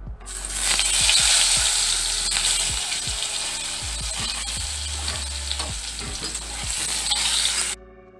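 Whole peeled pointed gourds sizzling as they fry in hot mustard oil in a kadai. The steady sizzle swells in just after the start and cuts off abruptly near the end.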